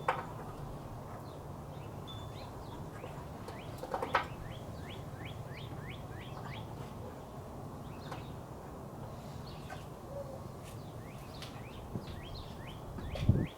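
Small birds chirping again and again in short, quick, downward-sweeping notes over a low steady rumble, with a couple of sharp clicks from handling parts, at the start and about four seconds in.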